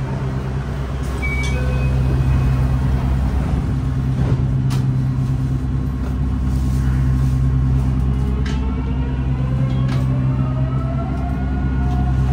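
Mitsubishi GTO-VVVF inverter and traction motors of a 3000A-series subway train, heard from inside the car: a steady electrical hum, a few sharp clicks midway, then from about eight seconds in a rising, stepped whine as the train starts to pull out of the station.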